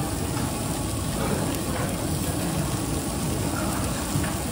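Beef cubes and sliced garlic sizzling steadily on a hot round griddle plate, a continuous crackling hiss of fat and juices frying.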